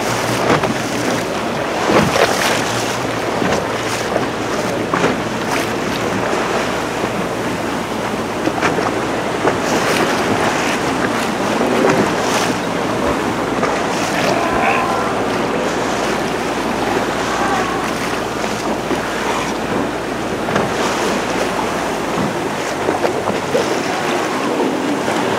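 Small boat's motor running under choppy waves and wind buffeting the microphone. The motor's low hum drops away a few seconds before the end.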